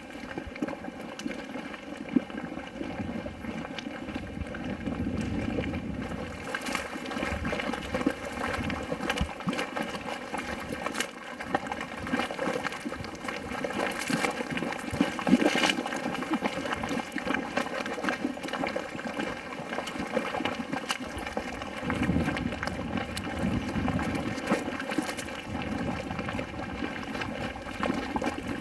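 Boiling mud in a volcanic mud pool, bubbling continuously with thick bubbles popping, and a few louder pops, one about halfway through.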